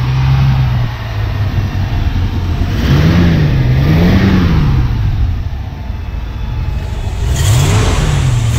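1958 Cadillac's 365 cubic-inch V8 running at idle under the open hood, revved up and back down twice about three seconds in, then revved again near the end.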